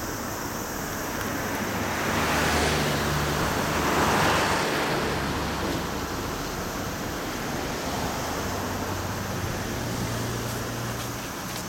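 Wind rushing over the microphone, swelling twice in the first half, over a faint low hum of engines.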